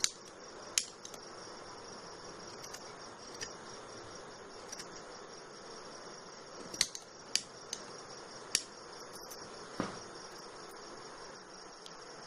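Scissors snipping through the macramé cord ends of a fringe, trimming them to length: about ten sharp, short snips at irregular spacing. A steady high insect chirring runs underneath.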